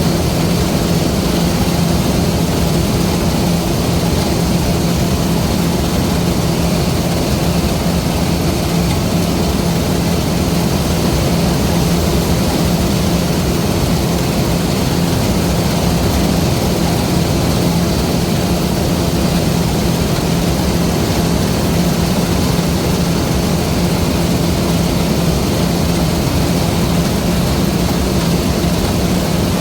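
LOVOL RG130 EVO rice combine harvester running steadily: a constant engine drone with a strong low hum that keeps an even pitch throughout.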